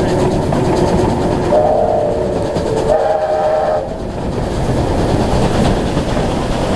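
Steam train running with steady wheel and rail rumble, and a steam locomotive whistle sounding two short blasts, about a second and a half in and again about three seconds in.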